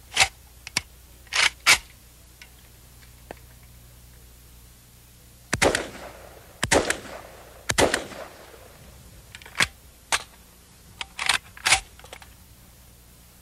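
A semi-automatic AK-47 look-alike rifle firing about a dozen single shots, each a separate pull of the trigger, in irregular groups with pauses between: one round per pull, the mark of semi-automatic fire. There is a longer pause from about two seconds in until about five and a half seconds in.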